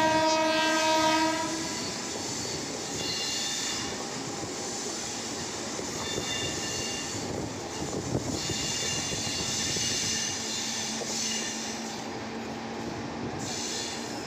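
Passenger train running round a curve, heard from an open coach door: a train horn sounds for about the first second and a half, then the wheels squeal high-pitched on and off along the curve over the steady rumble of wheels on the rails.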